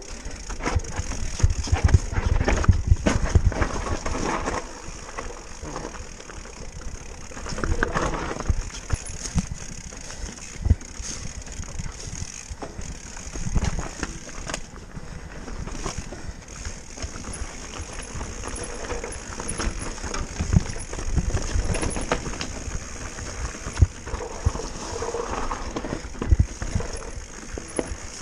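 Enduro mountain bike riding down a rocky trail: tyres crunching over rock and loose stones, with the bike clattering and knocking irregularly over the bumps, over a constant rumble of wind and ground noise on the handlebar-mounted camera.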